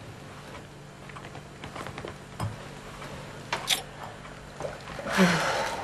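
Quiet room tone with a low hum and a few faint clicks, including a sip from a wine glass. Near the end comes a short breathy sound.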